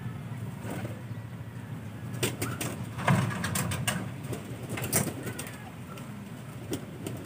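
Racing pigeons cooing in a wire-mesh loft. Over the cooing come sharp clicks and knocks, loudest about three seconds in and again about five seconds in, as a returned pigeon is reached for and lifted out of the loft's trap by hand.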